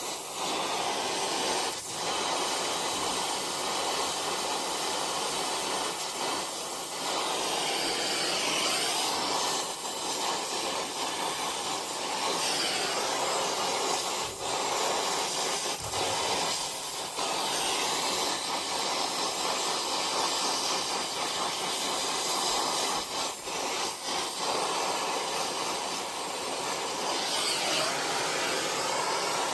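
Steady hissing noise, dipping briefly a few times.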